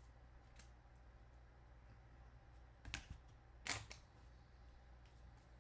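Trading cards and clear plastic card holders being handled: a few short clicks and rustles, the loudest about three seconds and nearly four seconds in, over a faint steady hum.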